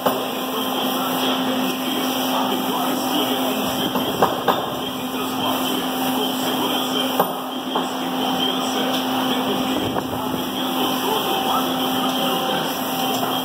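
Fabric laminating machine with a conveyor belt running steadily, with an even mechanical hum and a steady low tone as fabric feeds over its rollers. A few light knocks come around four seconds in and again about seven seconds in.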